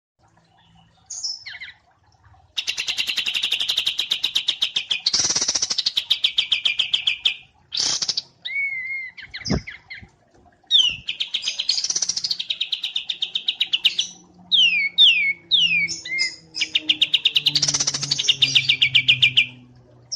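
Songbirds singing in a bird-training recording of wambi mini and kapas tembak: long, rapid, chattering trills of two to three seconds each, with a run of short, quick downslurred whistles about three quarters of the way through.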